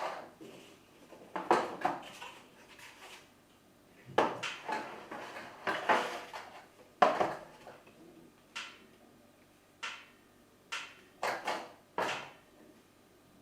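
Packaging and small items being handled during an unboxing: irregular knocks, clicks and rustling, in clusters at first, then a few separate sharp clicks in the second half.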